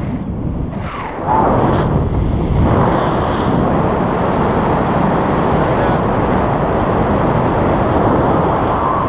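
Wind from the paraglider's airspeed rushing and buffeting over the action camera's microphone, getting louder about a second in.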